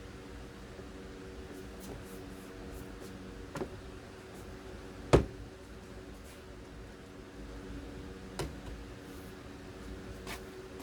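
Four separate knocks, the loudest about five seconds in and a fainter one near the end, over a steady low hum.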